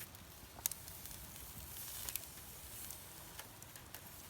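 Wood campfire crackling: scattered sharp pops over a soft hiss that swells about halfway through.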